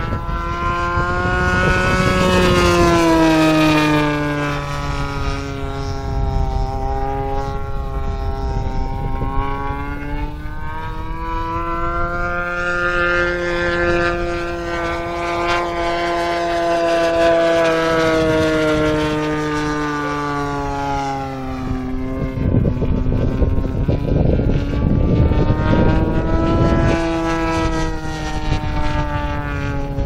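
Radio-controlled Extra 260 model plane's engine and propeller running in flight, its pitch rising and falling slowly as the plane manoeuvres and passes. A rougher rushing noise is mixed in for several seconds near the end.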